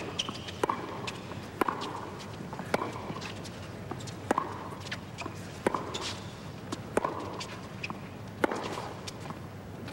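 Tennis rally: a ball struck back and forth by rackets, sharp pops about every one and a half seconds, about seven in all.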